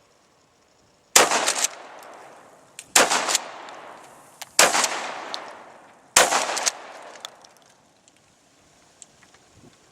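Remington 870 12-gauge pump shotgun fired four times at about one-and-a-half-second intervals, each shot ringing out and dying away over about a second. The shots are slugs.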